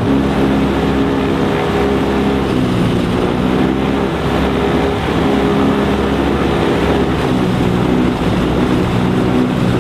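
Rotax 912 flat-four aircraft engine and propeller at high power on a static run-up near 5,000 RPM, heard from inside the cabin. The engine note wavers and shifts unsteadily rather than holding a clean pitch, the top-end stumble that the owners liken to losing spark on some cylinders.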